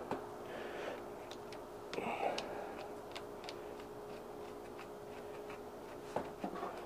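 Scattered light clicks and taps of charger-lead ring terminals and nuts being handled and fitted onto the battery terminal posts, over a faint steady hum.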